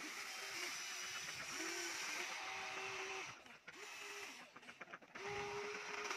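Small electric motors of a toy remote-control excavator whining as the arm lifts and swings a bucket of dirt. The whine stops and starts again several times, gliding in pitch as it starts and stops, with quick clicks in two short pauses.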